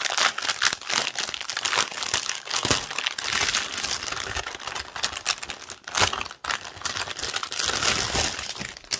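Plastic packaging crinkling and rustling as it is handled, with a few sharper crackles.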